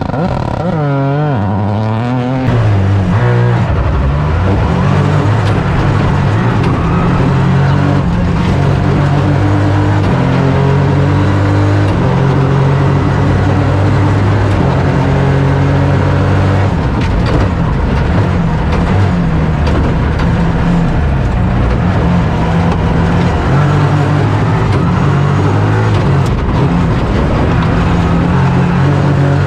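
Toyota GR Yaris AP4 rally car's turbocharged engine under hard driving. The revs climb and drop again and again as it works through the gears, and the pitch wavers for the first couple of seconds.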